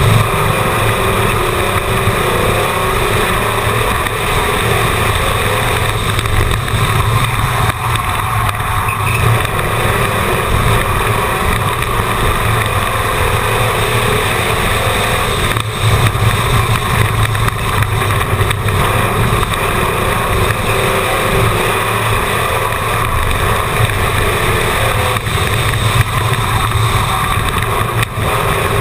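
Onboard sound of a short-track race car's engine running steadily at speed as the car laps an oval, loud and continuous.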